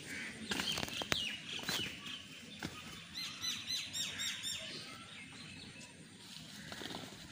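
Scattered knocks from men breaking down a brick house, with a bird calling a quick run of high, falling chirps about three seconds in.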